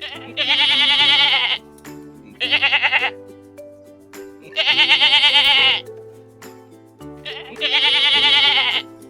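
Four loud, wavering bleats, alternating long and short, over background music with sustained low chords.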